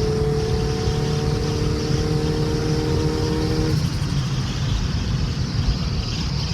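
Turbocharged car engine pulling under way, heard from inside the car with road rumble. Its steady note climbs slowly, then drops away suddenly a little under four seconds in, as the throttle is lifted or a shift begins.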